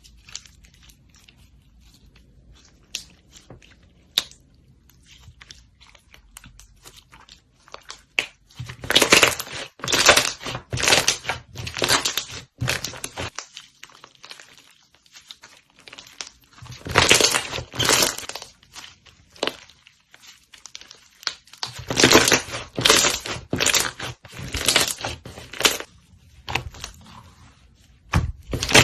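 Slime being squeezed and worked by hand, crackling and popping in several bunches of a second to a few seconds each, with quiet gaps between; the first several seconds hold only a few faint clicks.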